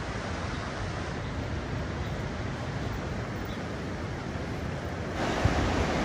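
Steady wash of ocean surf with wind. About five seconds in it grows louder and fuller as waves break over a rocky shore.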